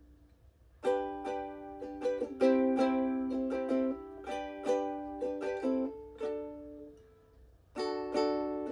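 Ukulele strumming chord riffs: a run of sharp strummed chords starts about a second in, the last one rings out, and strumming picks up again near the end.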